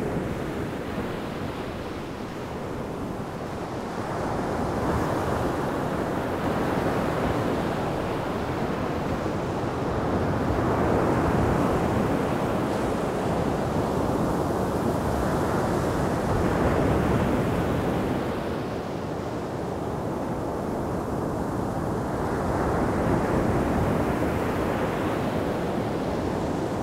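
Sea surf washing onto the shore: a steady rushing noise that swells and fades in slow surges every few seconds, with wind.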